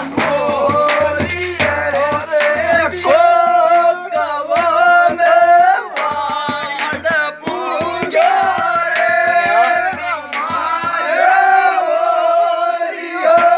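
Desi fagan, a Rajasthani Holi folk song: a voice singing long, bending held notes over drum beats.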